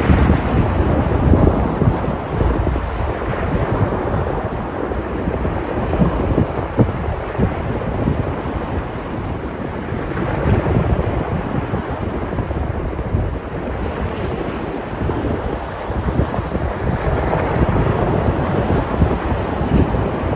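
Sea waves breaking and washing on the shore, the surf swelling and easing over several seconds, with wind rumbling on the microphone.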